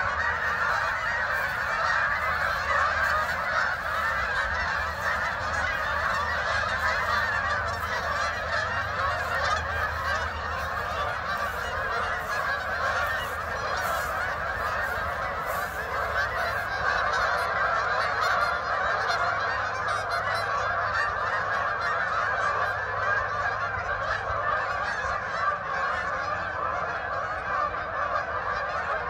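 Hundreds of geese honking all at once in a dense, continuous chorus, as a large flock lands and gathers on the water.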